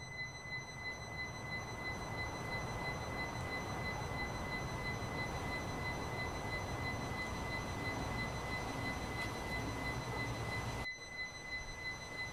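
Outdoor background noise: a steady low rumble and hiss with a thin, steady high-pitched whine over it. The noise drops a little near the end.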